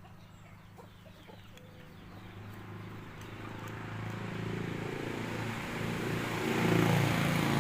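A motor vehicle passing: its engine sound slowly grows louder for several seconds, is loudest near the end and then begins to fade.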